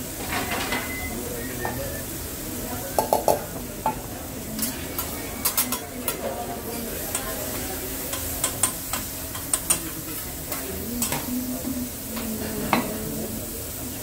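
Food sizzling on a hibachi flat-top griddle, with the chef's metal spatula and utensils clacking and scraping against the steel surface. The clacks come in quick runs of two or three, several times over.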